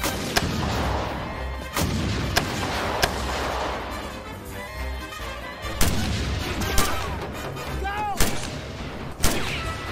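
Gunshots in a film action scene: about nine separate shots, fired unevenly, over a steady noisy rumble.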